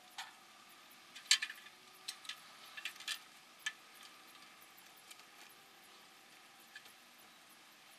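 Scattered sharp clicks and light rustles from a hen moving and pecking in the shredded-paper bedding of a wooden nesting box, most of them in the first four seconds.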